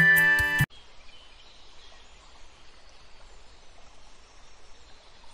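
Background music stops suddenly under a second in, leaving faint, steady outdoor background noise.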